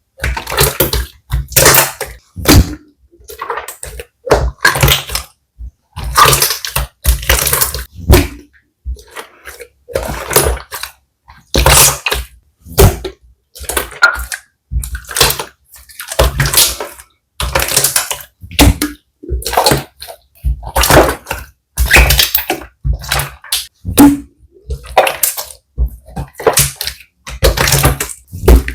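Slime being squeezed and pressed by hand close to the microphone: wet squelching and popping of air bubbles in short bursts about once a second, with silent gaps between.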